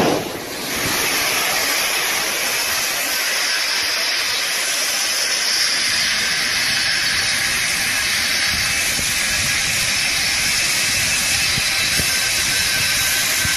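A short crash at the very start, then a steady loud rushing hiss of grain pouring out of a collapsed steel grain silo as the dust cloud rolls out.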